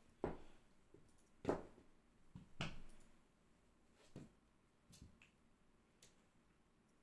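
Soft thumps and taps of a cat rolling and pouncing on a laminate floor while batting at a wand toy: about six separate knocks, the loudest two in the first two seconds and fainter ones after.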